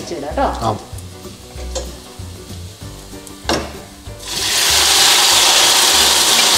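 A utensil scrapes and knocks in a large pan of shallots frying in coconut oil; about four seconds in, a loud, steady sizzle starts suddenly as the pork goes into the hot pan.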